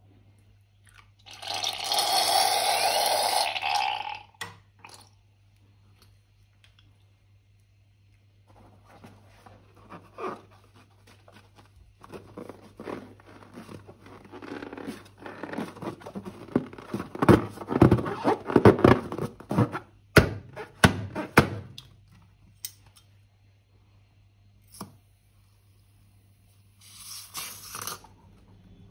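A filled latex balloon squeezed and kneaded in the hands, giving a long run of crackling and crunching. A loud hiss lasts about two seconds near the start, and a shorter one comes near the end.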